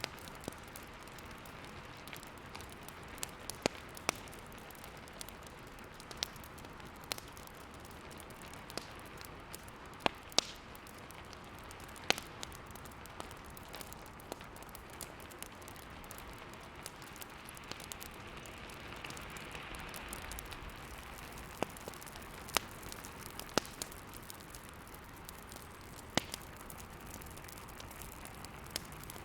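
Wood fire crackling in a fireplace: irregular sharp pops, a few much louder than the rest, over a steady hiss that swells briefly about two-thirds of the way in.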